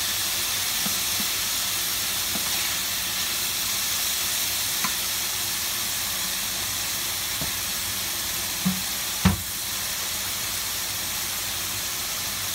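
Chicken cubes and carrots frying in oil in a pan, a steady sizzling hiss. A couple of knocks come about two-thirds of the way through, the second a sharp one and the loudest sound.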